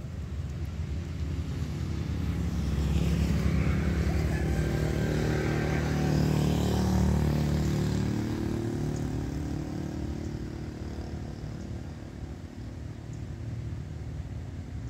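A motor vehicle passing by: its engine hum and road noise swell, are loudest in the middle, then fade away.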